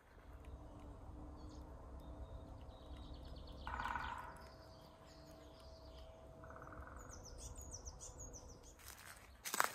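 Woodland birds chirping and calling over a low rumble of wind on the microphone, with a faint steady hum underneath. A louder call comes about four seconds in, and a sudden thump near the end.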